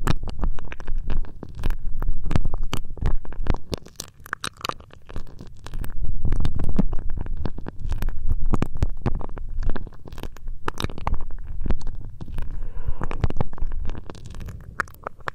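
Close-up ear rubbing ASMR: hands rubbing and pressing on an ear microphone, giving a low rumble with dense crackly clicks that swells and eases in uneven waves.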